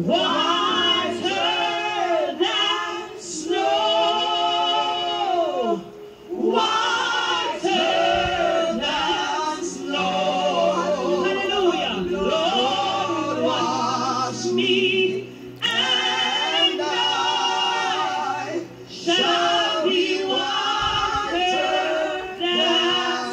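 A church choir singing a hymn, led by a woman's solo voice into a microphone with backing singers. Long, wavering held notes come in phrases broken by short pauses for breath.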